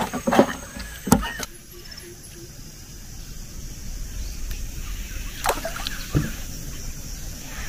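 A freshly caught fish flopping and slapping on a wooden boat deck, a few sharp knocks in the first second and a half, then a steady low background with two more sharp knocks a few seconds later.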